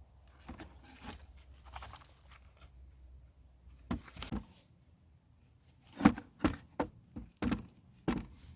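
A series of short knocks and clicks from objects being handled: a few soft ones at first, two sharper knocks about four seconds in, then a quick run of six louder knocks in the last few seconds.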